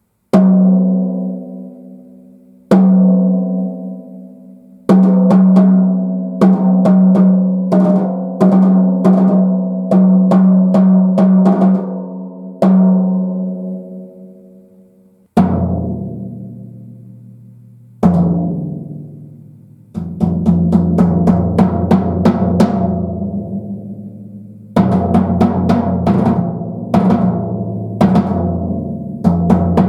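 TAMA Silverstar Metro-JAM birch drum kit played unaccompanied: single and grouped strokes on a higher-pitched drum that rings out after each hit, then a lower-pitched drum from about halfway, then the kit played together in a busier pattern with a deep bass drum for the last ten seconds.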